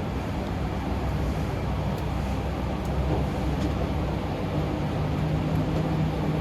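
Steady low mechanical rumble with a faint hum, with a few light ticks about midway.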